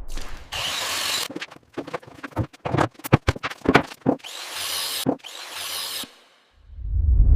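Construction work sounds: rough rubbing or scraping, then a quick run of sharp knocks, then more scraping. A low rumble swells in near the end.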